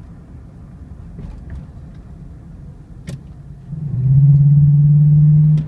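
Chevrolet 5.3L V8 with a cold air intake, heard from inside the cab while driving: a low engine rumble, then about four seconds in a loud, steady low drone that holds at one pitch for under two seconds before dropping off. There are two brief clicks, one about three seconds in and one at the end.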